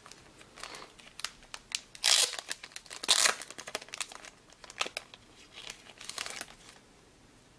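Clear plastic wrapping crinkling as hands work it open around a stack of trading cards, in irregular rustles, loudest about two and three seconds in.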